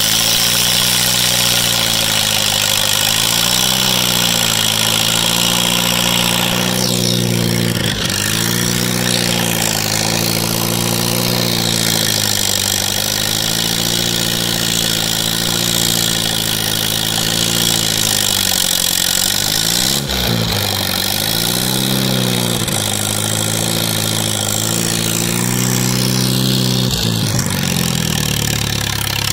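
Massey Harris Pony tractor's small four-cylinder Continental flathead engine running steadily under load as it tows a pickup truck on a cable, its pitch sagging and recovering a few times.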